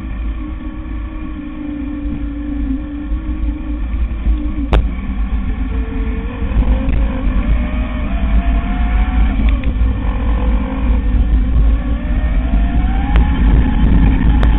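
E-bike riding over a forest trail, heard from the camera mounted on it: a steady low rumble of wind and trail vibration, with the electric motor's thin whine wavering and then rising in pitch in the second half. A single sharp click about five seconds in.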